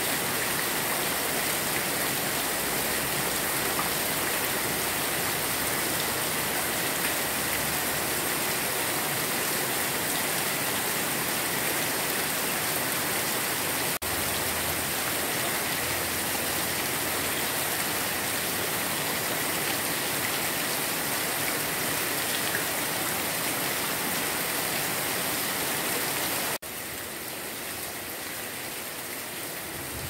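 Steady rain falling on plants and grass, an even hiss. Near the end the sound suddenly drops to a quieter rain.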